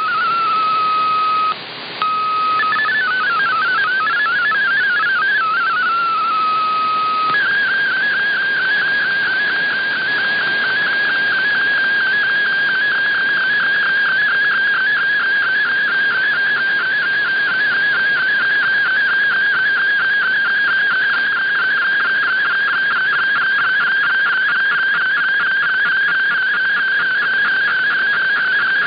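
MFSK32 digital data signal received off shortwave: a stream of rapidly hopping tones carrying text, which about seven seconds in changes to a steadier, fast-fluttering tone as the picture transmission begins. It sits over a steady background of radio hiss.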